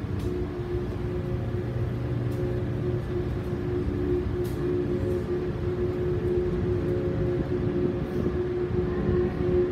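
Steady machinery drone of the ferry M/V Wenatchee heard on its enclosed car deck: a low rumble under a hum held at a few fixed pitches.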